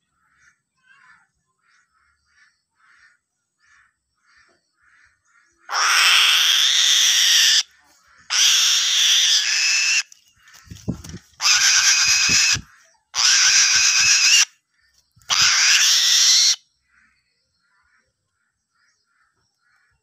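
A young bird of prey being hand-fed a fish, giving five long, harsh screams of one to two seconds each, between soft calls repeated about twice a second. Low thuds from its wings flapping come in the middle screams.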